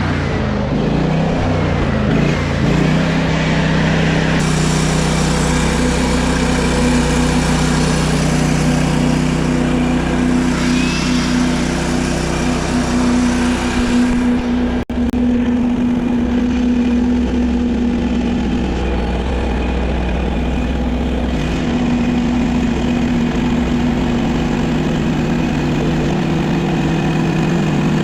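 Portable bandsaw sawmill's engine running steadily, with a brief break about halfway through.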